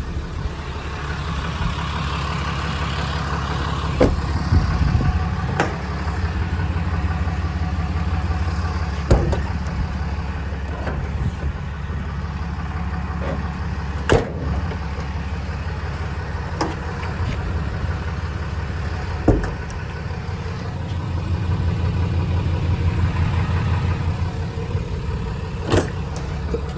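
Dodge Ram 4500's 6.7 L Cummins inline-six turbo-diesel idling steadily, with a few sharp clicks and knocks spread through it.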